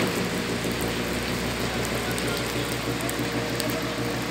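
Volkswagen Crafter van idling: a low pulsing hum under a steady hiss, with a sharp click right at the start.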